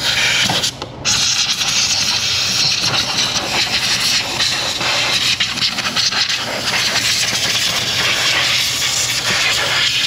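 Compressed-air blow gun hissing as it blows sand and dust out of an engine bay: a short blast, then a steady continuous blast from about a second in.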